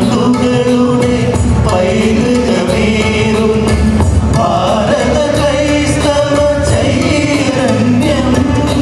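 Mixed choir of men and women singing together through microphones over an instrumental accompaniment with a steady beat.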